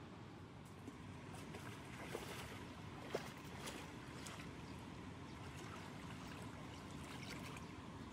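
Water moving and splashing gently, with a few small clicks and splashes, the sharpest two about two and three seconds in.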